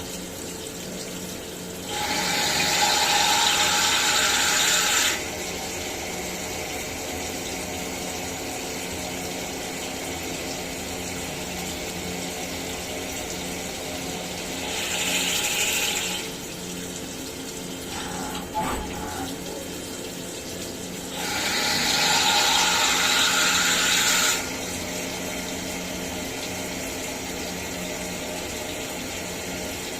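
CNC milling machine running with a steady hum, broken three times by loud bursts of hissing spray lasting a few seconds each, switched on and off sharply. A single click falls about two-thirds through.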